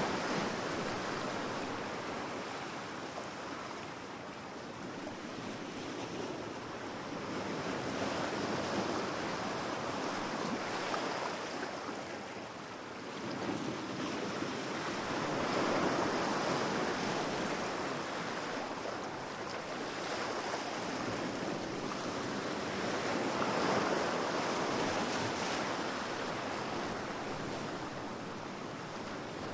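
Ocean waves breaking and washing on a beach, a steady surf that swells and ebbs every several seconds.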